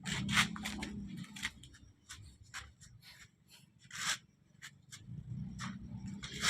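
Metal manual-transmission parts being handled and fitted: irregular clicks, scrapes and rubbing, a few sharper knocks, over a low hum in the first second and again in the last second or so.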